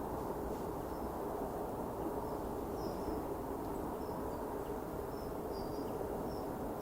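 Outdoor ambience: a steady low rumble with faint, short, high-pitched bird calls scattered through it.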